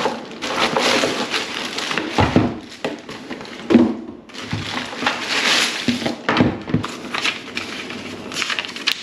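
A cardboard box and its packaging being opened and handled: irregular rustling and scraping with a few dull thumps.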